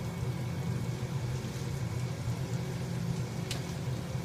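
A steady low rumble of background noise, with a single short click about three and a half seconds in.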